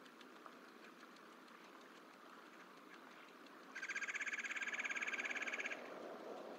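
An animal call: a rapid, evenly pulsed trill lasting about two seconds, starting a little past halfway, over faint outdoor background.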